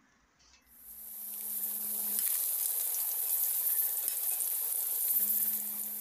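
Marinated chicken legs sizzling in hot oil, a dense crackling hiss that starts abruptly under a second in. A low steady hum sounds under it for a while and again near the end.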